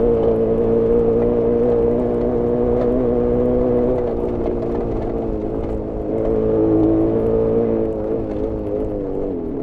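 Jawa 350 two-stroke twin engine heard onboard, held at a fairly steady throttle with small rises and dips in pitch; the pitch falls just before the end as the throttle eases off. The engine is running lean, which the owner says leaves it short of power.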